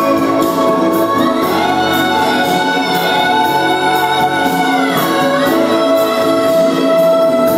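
Loud ballad music with an orchestral backing and percussion, with one long held note from about a second in until about five seconds in.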